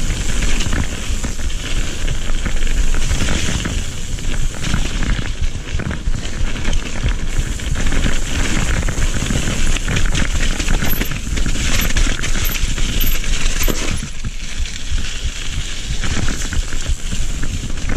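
Mountain bike riding fast down a dirt trail. Tyres rumble over wet dirt, and the bike clatters and rattles over roots and bumps in a steady run of sharp clicks.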